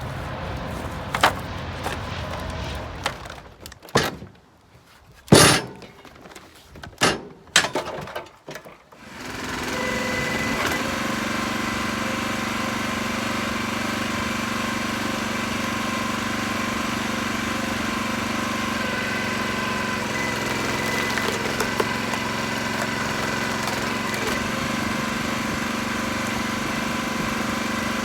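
Several sharp knocks and clunks in the first third, the loudest about five seconds in. Then a vehicle engine comes in and runs steadily with an even hum to the end.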